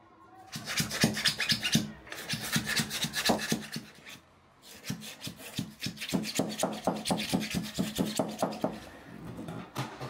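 Sodium-silicate sand being rammed down into a cylindrical mold with a rod: a quick run of gritty thuds and scrapes, in three bursts with short pauses between them.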